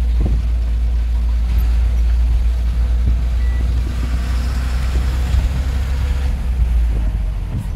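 Truck engine and road noise heard from inside the cab while driving: a steady, loud, deep rumble.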